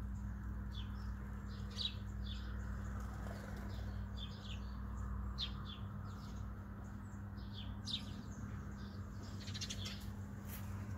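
Sparrows bathing in a shallow birdbath dish, their wings flicking and splashing water, with short chirps scattered throughout and a quick flurry of fluttering near the end.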